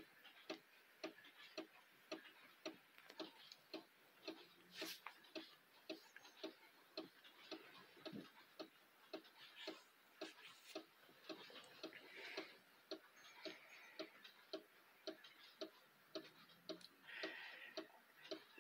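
Quartz mantel clock ticking steadily and softly, about two ticks a second.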